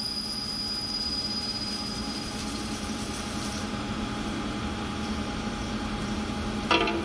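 Haas CNC lathe running with flood coolant spraying as a 4340 steel bolt is parted off: a steady hiss and machine hum, with a thin high whine that fades out about halfway. Near the end comes a short, loud, ringing clank.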